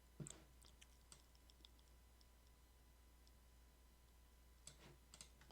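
Near silence with a few faint computer mouse clicks, a cluster about a second in and a couple more near the end.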